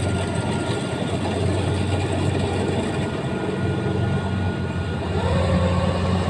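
Rice combine harvester running steadily: a low, even engine hum over a mechanical clatter, with a tone rising slightly about five seconds in.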